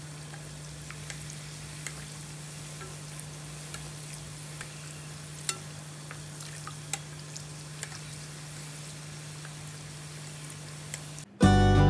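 Çiğ börek deep-frying in hot oil: a steady sizzle with scattered crackles and pops, over a steady low hum. Loud music comes in just before the end.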